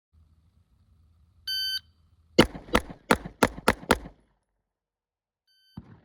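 Shot timer beeps once, and about a second later a pistol fires six quick shots in about a second and a half. Near the end comes a fainter short beep and a knock.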